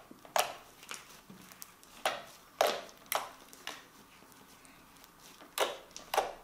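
Homemade glue slime pressed and kneaded by hand, giving sharp, short clicking pops of trapped air. About nine clicks come at irregular intervals, with a lull around four to five seconds in and a quick run of three near the end.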